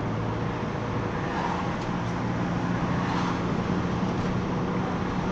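Mercedes-Benz Sprinter minibus driving along, heard from inside the passenger cabin: a steady engine hum over road noise, the engine note rising about a second and a half in.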